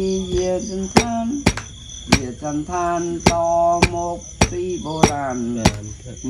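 Music with a singing voice and a sharp beat about twice a second, over a steady high trill of crickets.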